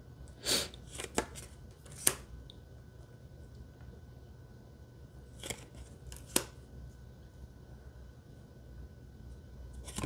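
Tarot cards being handled and swapped: a few short slides and sharp card snaps spread through, the loudest about two seconds in and about six seconds in, over a faint steady room hum.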